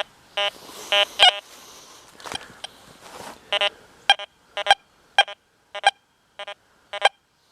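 Deus 2 metal detector giving a string of short beeping tones, irregularly spaced at roughly one to two a second, as the search coil is swept over crossed iron nails lying above a silver dollar. There is a hissy rustle in the first half of the string.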